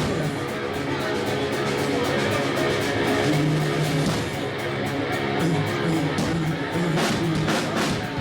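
Live band playing loud guitar-led rock music, with steady rhythmic strokes beneath the guitar.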